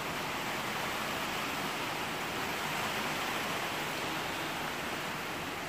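Steady light rain falling on a greenhouse roof, an even hiss with no breaks.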